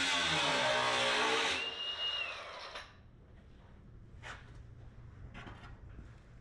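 Power grinder running loud, then released about a second and a half in and spinning down with a falling whine. A few light knocks follow.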